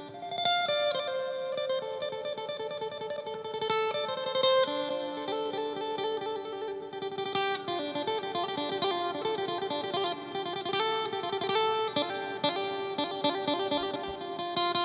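Isan folk-ensemble music led by an amplified phin, the plucked Isan lute, playing a busy melody of many short notes over the band.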